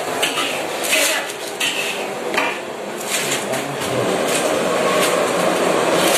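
Clinking and clattering of dishes, pots and utensils in a working kitchen, with a steady rushing noise swelling up about four seconds in.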